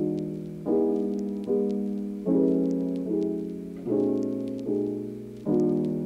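Background music: soft piano chords struck about once every 0.8 seconds, each left to fade before the next.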